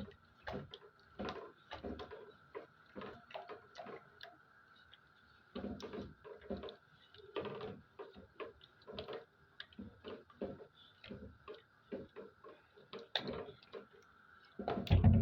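Curry sauce boiling in the pot, with irregular small pops and clicks several times a second over a faint steady hum.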